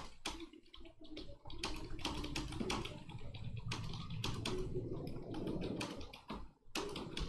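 Typing on a computer keyboard: quick, irregular key clicks, several a second, with a brief pause near the end.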